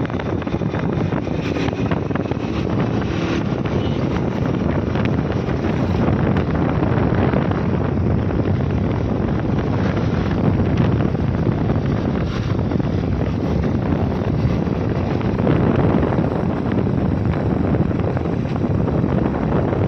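Steady wind rushing over the microphone of a moving Honda motorcycle, with the bike's engine running underneath. It gets a little louder a few seconds in.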